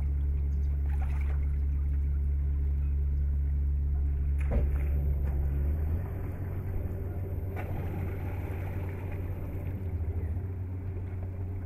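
Electric boat motor running with a steady low hum, heard on board; about six seconds in it drops to a quieter hum as the boat moves slowly off. A couple of light knocks come partway through.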